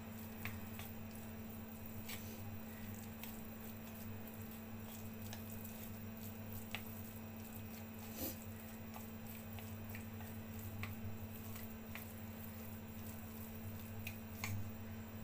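Wooden chopsticks stirring seasoned minced beef in a ceramic bowl: soft wet squishing with scattered light clicks of the sticks against the bowl, over a steady low hum.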